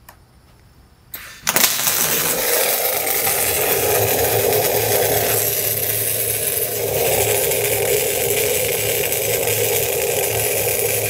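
MIG welding arc struck about a second and a half in, then a steady sizzle, burning Böhler Diamond Spark cored wire fed from a Miller 252 run wide open.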